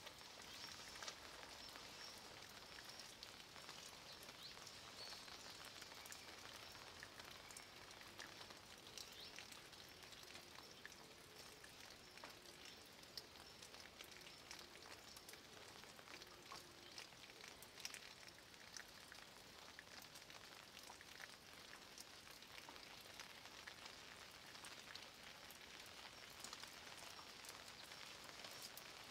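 Light rain falling faintly and steadily on a moss-covered stone wall, with many small drops ticking and dripping from the stones.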